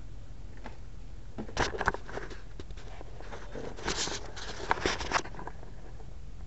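Handling noise: rustling and a few sharp clicks in two short clusters, about a second and a half in and again from about three and a half to five seconds in, over a low steady hum.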